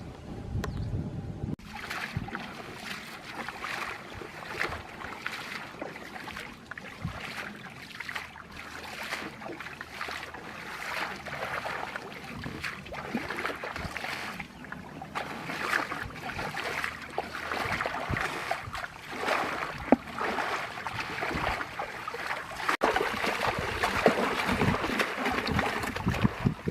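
Water splashing and sloshing, an irregular crackle with no steady rhythm.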